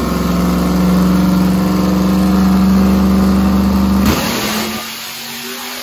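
Texas Speed Brawler Series V8 in a GMC pickup running at full throttle on a chassis dyno, likely on nitrous. Its pitch holds nearly steady and rises only slightly, as if it is on the rev limiter. About four seconds in the throttle snaps shut and the sound drops away to a much quieter engine and roller noise.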